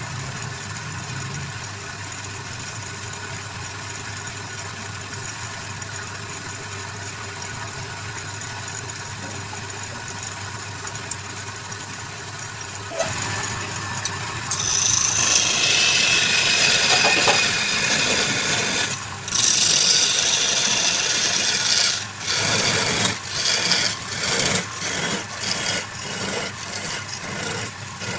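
Wood lathe motor running with a steady hum, then from about 13 seconds in a loud hissing scrape as a tool is held against the spinning wooden workpiece, breaking into short repeated passes near the end.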